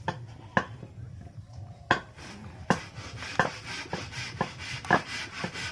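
Irregular sharp metallic taps and clinks, roughly one or two a second, from tools and parts being handled while working on an electric planer.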